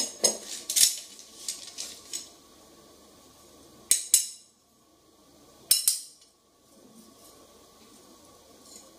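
Steel wood-carving chisel blades clinking against one another as they are handled and sorted: a quick run of clinks in the first two seconds, then two short pairs of clinks about four and six seconds in.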